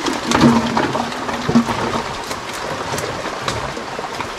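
Shallow creek water splashing and sloshing, with scattered knocks and scrapes close by.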